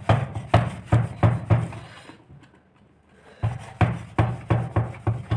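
Cloth rubbed briskly back and forth over an electric iron's metal soleplate in quick strokes, about three to four a second. The strokes come in two runs with a pause of about a second and a half between them. The wiping clears the loosened grime off the plate after cleaning.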